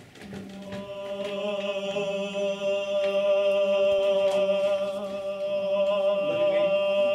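A male barbershop singer's voice holding one long, steady sung note that begins just after the start.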